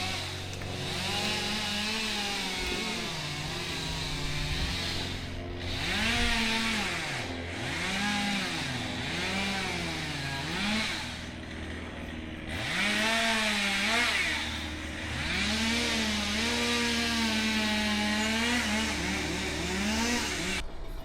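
Two-stroke chainsaw running, its engine pitch repeatedly revving up and dropping away as it cuts, over a steady lower engine hum. It cuts off suddenly near the end.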